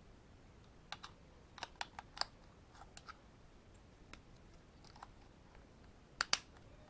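Light, irregular clicks and taps of small hard plastic objects being handled, with a louder double click near the end.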